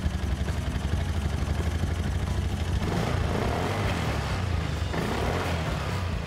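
Suzuki Address V125G scooter's single-cylinder four-stroke engine running steadily with an even low pulse. A rougher, noisier stretch comes in the middle, around three to five and a half seconds in.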